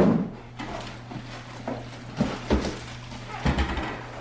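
Packaging being handled: moulded-pulp inserts and plastic-bagged juicer parts are lifted and moved, giving scattered rustles and knocks, with a couple of dull thuds against the counter in the second half.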